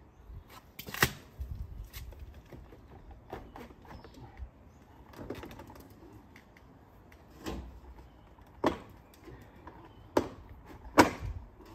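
PVC fence mid rail being slapped and pressed down by hand onto the slat panel. A few separate hollow plastic knocks, the loudest about a second in and near the end.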